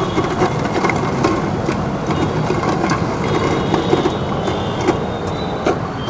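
Steady hum of city road traffic, with a few light clicks over it.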